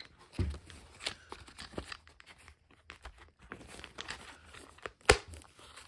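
Hands handling a foam RC plane and its plastic parts: scattered light clicks, rubbing and crinkling, with a dull thump about half a second in and one sharp click about five seconds in.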